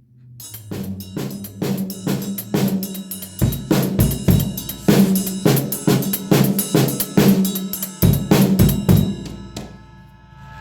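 Drum-kit music: a steady beat of kick, snare and cymbals over a bass line, coming in over the first second and fading out near the end.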